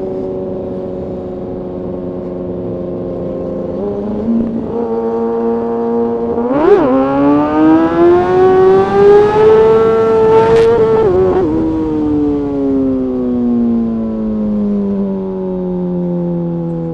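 Kawasaki ZX-6R inline-four engine under way, cruising steadily, then stepping up in pitch about four seconds in. A quick rev blip comes near seven seconds, then the engine climbs steadily in pitch under acceleration for a few seconds. A sharp crack near ten and a half seconds is followed by a slow fall in pitch as the throttle rolls off.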